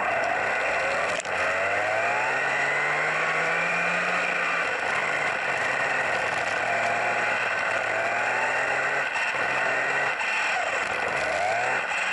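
Onboard sound of a WLtoys 104001 1/10 electric RC buggy driving: its motor and drivetrain whine rises and falls in pitch as it speeds up and slows, over a steady rumble and clatter of tyres on rough concrete.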